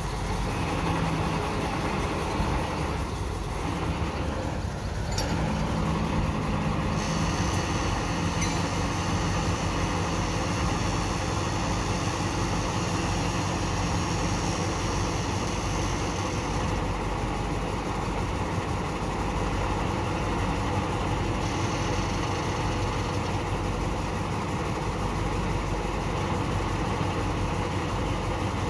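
Diesel engine of heavy construction machinery running steadily. A high whine joins it about a quarter of the way in and drops away a little past halfway.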